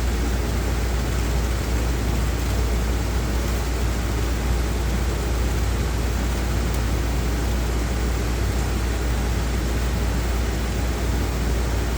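Workshop dust-collection vacuum running steadily: an even rushing noise with a low hum underneath, unchanging throughout.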